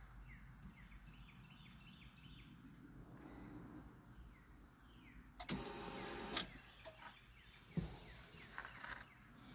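A small electric motor whirs briefly, for about a second a little past halfway, followed by a sharp click near the end.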